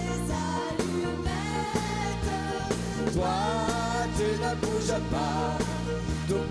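Live French pop duet: a woman's voice and then a man's voice sing over a band with keyboard, bass and a steady beat.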